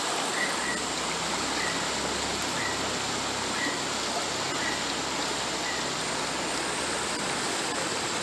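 Shallow stream running over a stony bed: a steady rush of water.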